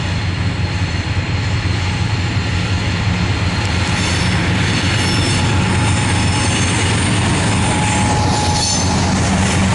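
CSX diesel freight locomotives passing close by on a curve, engines running with a steady low drone that grows a little louder as they come near, with wheel squeal from the curved track.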